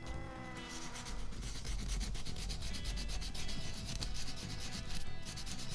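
Hand sanding the crown of a Harley-Davidson 107 piston with sandpaper on a sponge, in quick circular strokes that scrub carbon off the piston top: a fast, scratchy rubbing with a brief pause near the end.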